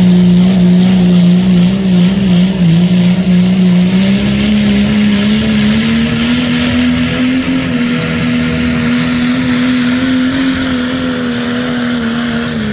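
Dodge Ram's 5.9 L Cummins inline-six turbodiesel at full throttle under heavy load, dragging a weight-transfer pulling sled. A loud, steady engine note that climbs slightly in pitch over the first half and then holds, with a faint high whistle above it.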